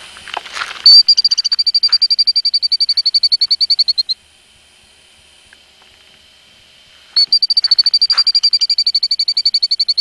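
A nesting killdeer giving its rapid, high-pitched pulsed trill, close and loud, with many notes a second. It breaks off after about three seconds and starts again near the end.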